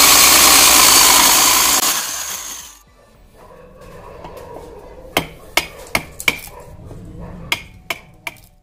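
Electric hand drill boring into a wooden frame member, running steadily for about two seconds and then winding down. Then a wood chisel is struck by a metal-headed tool, about seven sharp knocks, chopping out a mortise between the drilled holes.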